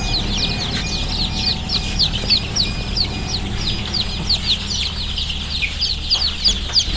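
A crowd of young indigenous (desi) chicks peeping: a dense run of short, high, falling cheeps several times a second, over a low steady hum.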